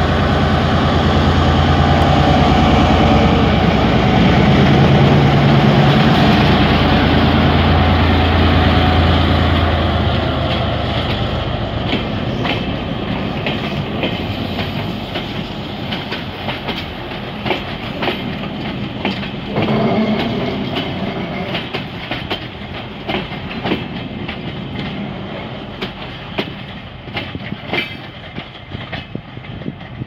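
G22 diesel-electric locomotive pulling away with a loud, low engine drone, then its passenger coaches rolling past with clickety-clack wheel clicks over the rail joints. The sound slowly fades as the train draws off.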